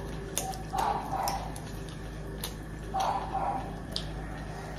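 Eating sounds of people eating by hand from steel plates: chewing and mouth noises, with a few sharp clicks of fingers on the plates.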